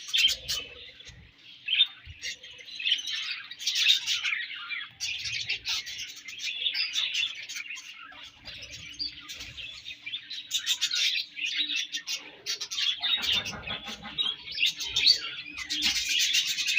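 Budgerigars chirping and warbling without a break, with many sharp clicks scattered through the chatter.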